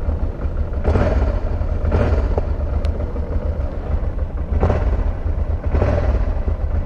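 Wind buffeting the helmet-mounted camera microphone: a steady low rumble with four brief louder gusts.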